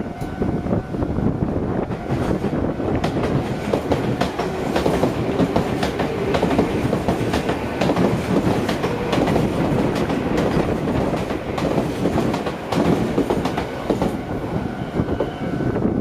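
Nagoya Railroad (Meitetsu) electric train passing through a level crossing, its wheels clattering steadily over the rail joints.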